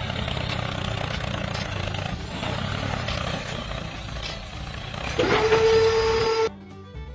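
Vehicle engine noise, then a steady horn-like tone for just over a second near the end, before the sound cuts off abruptly.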